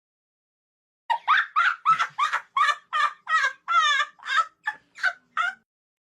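A quick series of about a dozen short squawking fowl calls, like a chicken or turkey, used as a comedy sound effect; it starts after a second of silence and stops abruptly.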